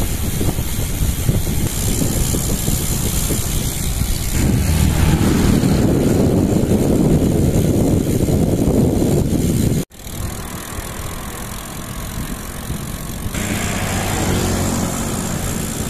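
Steady wind and road rumble from riding a bicycle, with a motor vehicle's engine running nearby. A faint engine hum comes in over the last few seconds, and the sound cuts out for a moment about ten seconds in.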